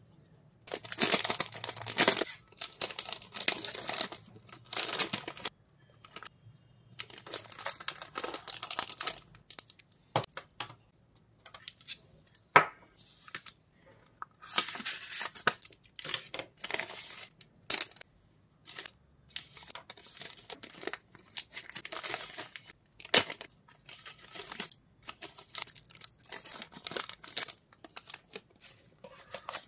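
Clear plastic packaging and a zip-lock bag crinkling as they are handled, in irregular bursts with short pauses, and a few sharp clicks.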